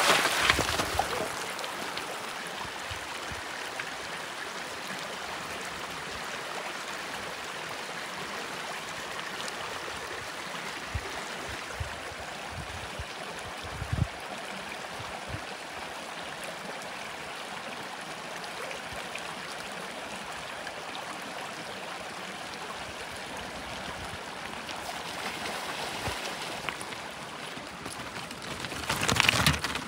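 Mountain stream running steadily over a rocky bed. At the start a bike tyre splashes through the water, and near the end a mountain bike rolls close past over loose stones.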